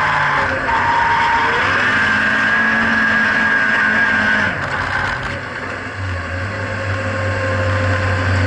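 Nissan 180SX's turbocharged SR20DET four-cylinder engine running hard on the track, heard from inside the cabin. About four and a half seconds in the sound drops briefly, then carries on at a steady lower note.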